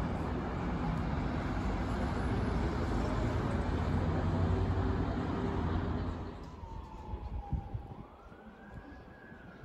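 A road vehicle running close by for about six seconds, then fading, followed by an emergency-vehicle siren wailing, its pitch sliding slowly down, up and down again.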